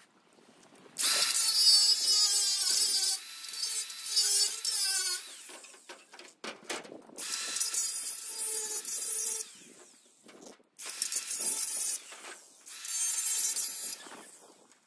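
Milwaukee angle grinder grinding the edges of a truck's cut-out grille in four runs of one to four seconds each, its whine wavering as the disc bites, with short pauses between. The grinding smooths off the leftover bits of the removed grille bars.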